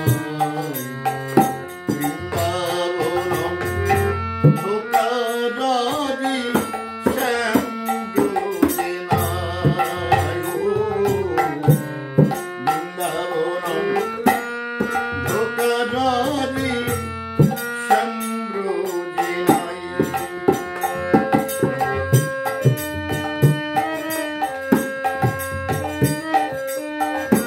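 Harmonium and a hand-played two-headed barrel drum playing a Bengali folk song accompaniment: held reed notes and melody over a steady run of drum strokes.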